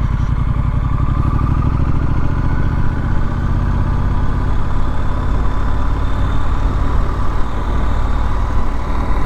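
Triumph Street Scrambler's 900 cc parallel-twin engine running steadily while the motorcycle is ridden, a low, even engine note with road and wind noise over it.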